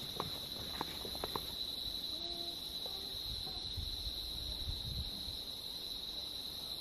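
Steady high-pitched insect drone, one unbroken tone, from insects in a paperbark forest. A few faint clicks come in the first second and a half.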